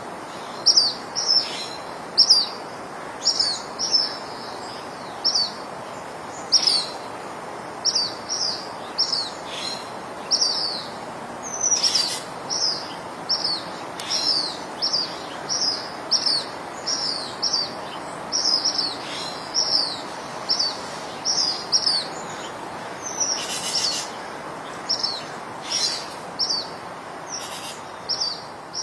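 Birds chirping: a long series of short, high, falling chirps, about one or two a second, over a soft steady background noise.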